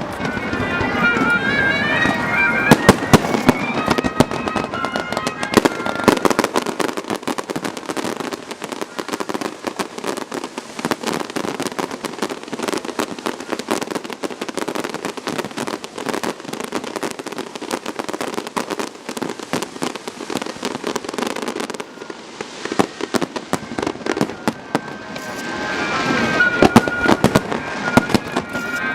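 Fireworks display: a steady run of sharp bangs and dense crackling from bursting shells, with pitched tones rising and stepping near the start and again near the end.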